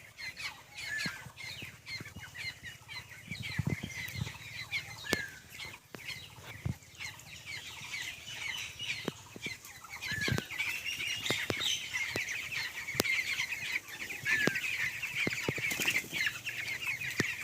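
A flock of 19-day-old broiler chicks cheeping, many short high peeps overlapping, growing denser and louder about ten seconds in, with scattered sharp clicks among them.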